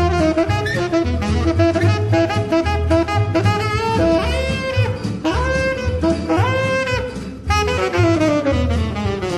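Background music: a lead melody with sliding notes over a steady bass and drum beat.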